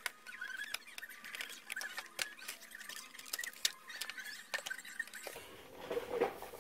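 Handling noise as the metal cover comes off a TV's connection box and its circuit board is lifted out: scattered light clicks and taps, with faint thin squeaks.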